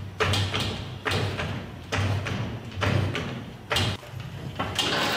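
Hydraulic floor jack being pumped by its long handle, a sharp knock with each stroke, about one stroke a second, six in all, as it raises the rear of the car.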